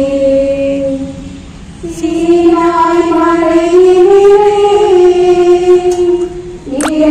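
Voices singing a slow hymn in unison, one melody in long held notes, pausing between phrases about a second and a half in. A short sharp click sounds near the end.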